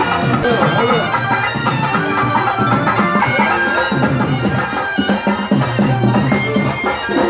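Loud, continuous folk music led by a reedy wind instrument holding steady notes.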